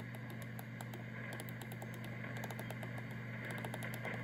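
Homebrew SSB receiver's audio giving band static with a steady low hum while being tuned down the 75-metre band in lower sideband, between stations. Faint quick ticks run through the hiss.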